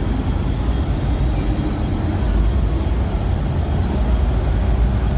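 MTR M-Train metro train running, a steady low rumble.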